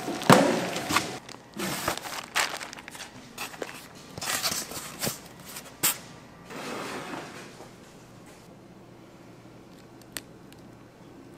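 Plastic bag packed with cabbage kimchi crinkling and rustling as gloved hands twist it closed in a plastic tub: a string of sharp crinkles, loudest just after the start, dying away after about six seconds.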